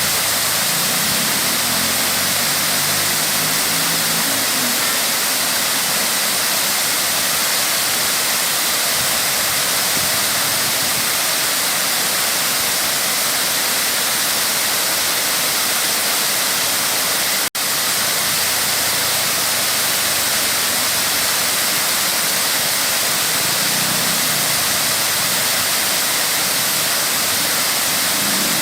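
Waterfall rushing: a loud, steady wash of falling water, broken by a split-second dropout about two-thirds of the way through.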